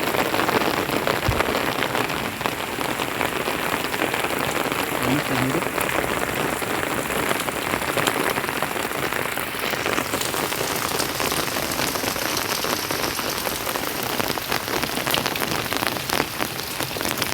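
Heavy rain mixed with hail pelting down: a dense, steady hiss with many small sharp ticks of hailstones striking.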